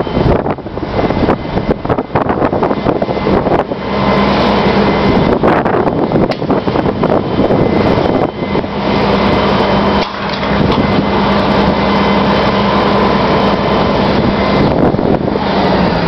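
Fire truck's engine running at raised speed with a steady hydraulic whine as the aerial ladder is lowered, starting about four seconds in, dipping briefly midway and stopping just before the end. Wind buffets the microphone, gustiest at the start and finish.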